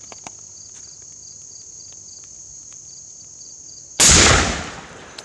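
A single loud 12-gauge shotgun shot with birdshot about four seconds in, its report fading over about a second. Crickets chirp steadily throughout.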